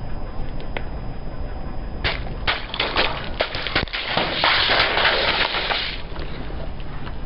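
Car tyre rolling over a row of liquid-filled plastic tubes and crushing them. About two seconds in come separate sharp snaps as the tubes burst one after another, then a dense crackle from about four and a half to six seconds in as the tyre squashes the rest and squirts the liquid out.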